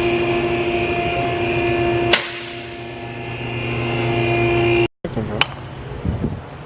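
A loud, steady machine drone with a held tone, struck once by a sharp knock about two seconds in. The drone cuts off abruptly near five seconds, followed by a click and a faint low voice.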